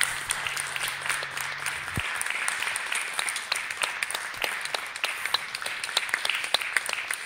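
Audience applauding: many hands clapping irregularly. A low hum underneath stops about two seconds in.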